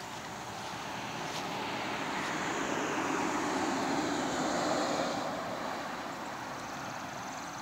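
A vehicle passing by: a broad rushing noise swells to a peak about four to five seconds in, then fades away.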